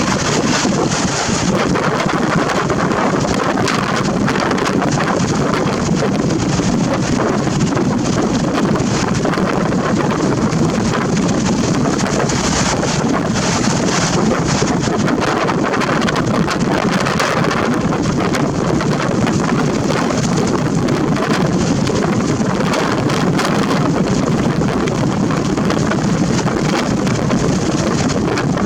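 Strong wind buffeting the camera's built-in microphone: a loud, steady, crackling rush of wind noise with no break.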